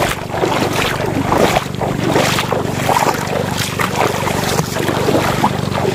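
Feet splashing through ankle-deep seawater in a string of wet steps, over wind noise on the microphone and a steady low hum.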